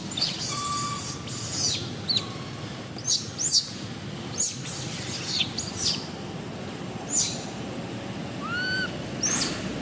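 Baby macaque screaming: short, shrill squeals and chirps, coming singly and in quick pairs every second or so, with a short rising-and-falling call near the end.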